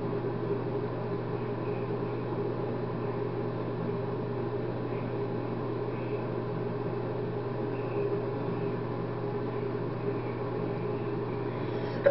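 Steady low hum with a faint even hiss: background room tone with no distinct events, cut by one brief sharp sound at the very end.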